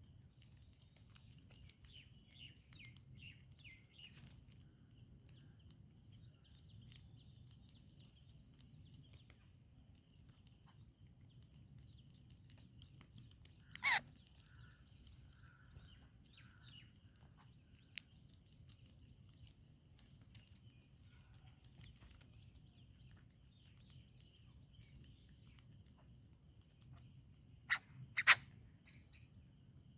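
Quiet outdoor ambience with a steady faint high insect drone and a few faint bird chirps. Sharp clicks or knocks come once about halfway through and twice close together near the end.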